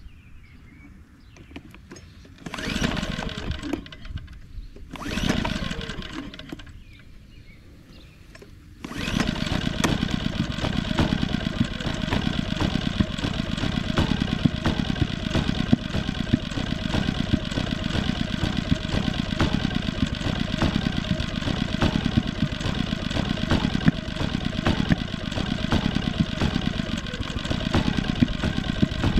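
Firman W2000i inverter generator being pull-started by its recoil cord. It fires and dies twice, then catches on about the third pull, some nine seconds in, and keeps running steadily. The engine is hard to start: it fires readily but won't take off.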